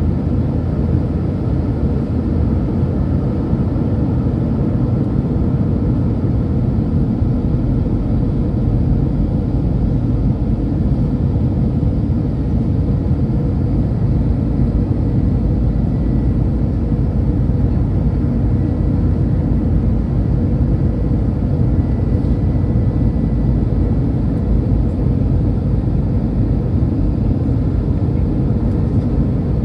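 Airbus A319 cabin noise at a window seat over the wing during the descent on approach to landing: the engines and rushing air make a steady low rumble with a faint hum.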